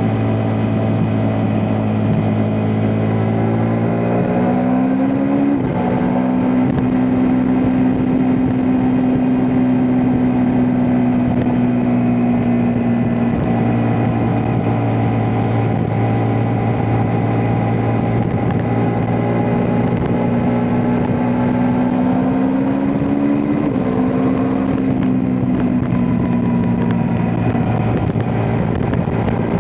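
Ducati Multistrada V4 S's V4 engine running under way, with a steady note that twice climbs in pitch and drops sharply, about five seconds in and again about twenty-three seconds in.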